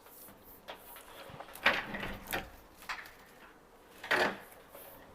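Handling of network cables at a patch panel: a few short scrapes and clicks, the longest a little past halfway.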